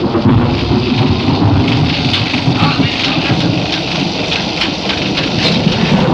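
Thunderstorm sound effect from a film soundtrack: rolling thunder over heavy rain, with many small crackles.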